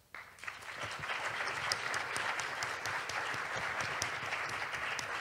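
Audience applauding, a dense patter of many hands clapping that starts right away and swells over the first second, then holds steady.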